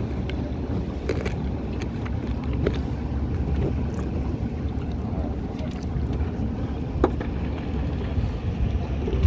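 Boat engine running steadily at sea, a low rumble with wind on the microphone and a few light knocks.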